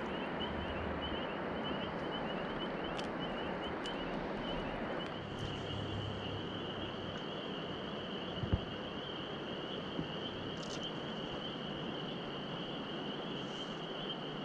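Steady rush of flowing water with a high, steady chorus of crickets trilling over it at dusk; a single soft knock about eight and a half seconds in.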